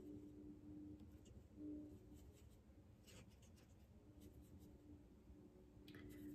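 Near silence: faint, scattered scratches and taps of a small paintbrush mixing paint in a watercolour palette, over a low steady hum.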